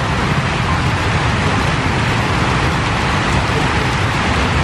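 Steady hiss of rain with a low rumble underneath, even throughout and with no distinct events.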